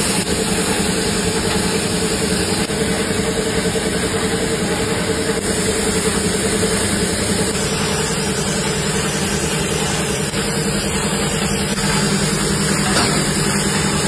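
Gravity-feed air spray gun hissing steadily as it sprays tile glaze, over a steady low machine hum.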